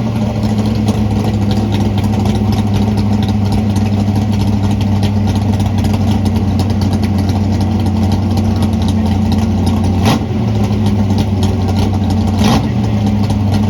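Car engine running with a steady low drone, briefly dipping about ten seconds in and again near the end.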